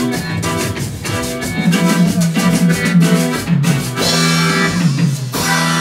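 Cumbia band playing: an even drum and percussion beat with guitar and keyboard over it. Near the end the drums stop and a chord is held, as the song finishes.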